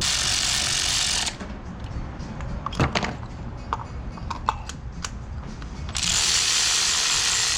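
A loud, steady hiss for about a second. Then come several sharp clicks and taps of tools on a spark plug job, and the hiss starts again about six seconds in.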